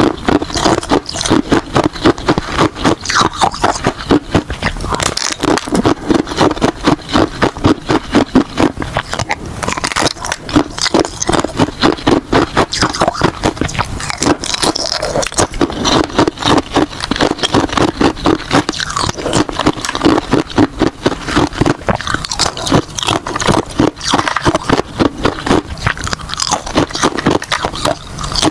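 Close-up crunching of ice being bitten and chewed, steady and rapid, with many sharp cracks a second, typical of frozen matcha ice cubes.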